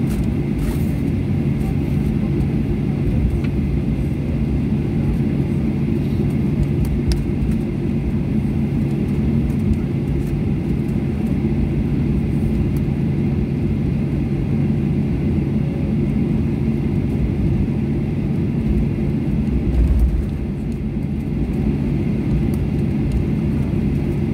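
Steady cabin noise of a jet airliner taxiing, its engines near idle: a constant low hum with a faint high whine over it. A brief low rumble comes about twenty seconds in, and the noise is slightly quieter after it.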